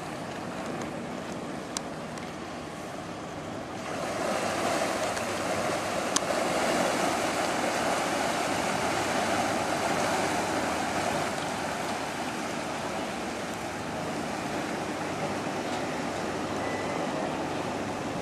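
Superyacht's propellers churning the water at its stern: a steady rushing of water over the low hum of its engines. It swells about four seconds in and eases off after about eleven. A single sharp click about six seconds in.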